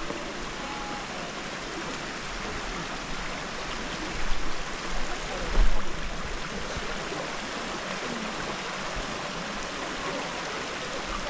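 Running water of a mountain creek, a steady rush, with a few low thumps about four to six seconds in.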